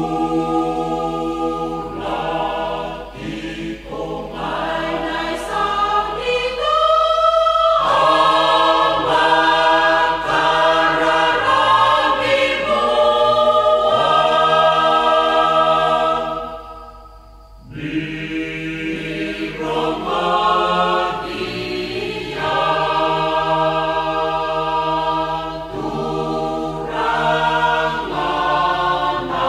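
Choir singing in harmony, with long held notes and a short break between phrases about seventeen seconds in.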